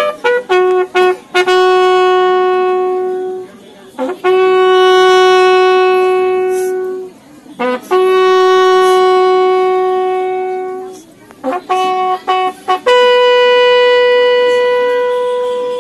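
A bugle sounding a slow ceremonial salute call. Runs of short quick notes lead into three long held notes on the same pitch, and then a final long, higher note that fades away near the end.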